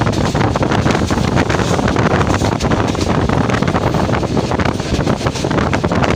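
Steady noise of a moving passenger train with many small rattles, and wind buffeting the microphone.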